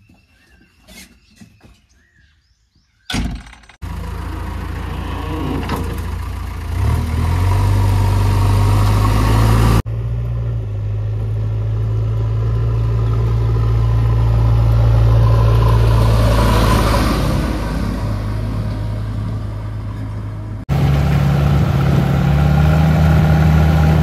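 JCB 3DX backhoe loader's diesel engine starting about three seconds in, then running steadily as the machine drives along. Before the start, faint bird calls.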